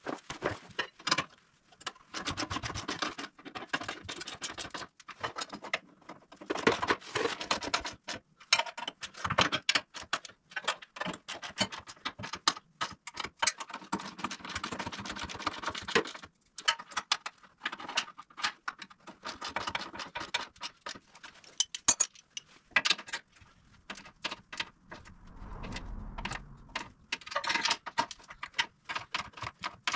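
Metal hand tools and bolts at work on a winch bumper's mounting brackets: runs of rapid clicking like a ratchet wrench, with loose hardware clinking in between.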